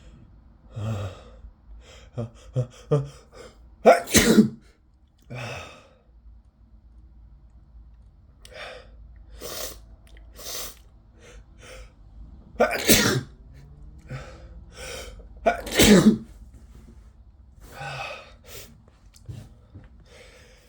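A man with a cold in a sneezing fit: several loud sneezes spread out with pauses, and short gasping in-breaths building up between them.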